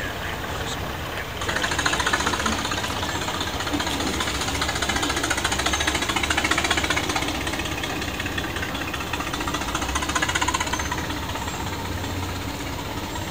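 The engine of a restored 1922 Gotfredson tow truck running with a rapid, even clatter. It gets louder about a second and a half in and stays steady from there.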